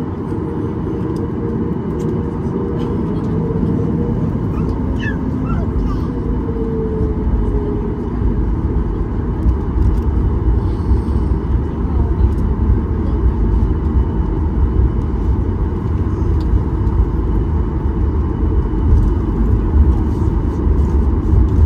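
Steady low rumble inside the cabin of a Boeing 737 MAX 8, growing heavier in the deepest range about eight seconds in.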